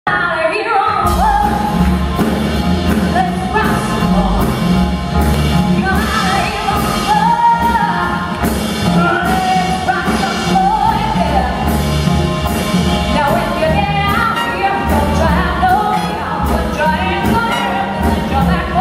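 Live jazz band performing: a woman singing lead into a microphone over drums, upright bass and electric guitar, with drums and cymbals keeping a steady beat.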